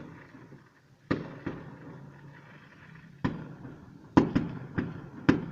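Fireworks salute: about eight sharp bangs of bursting shells at irregular intervals, each trailing off in an echo, coming closer together near the end.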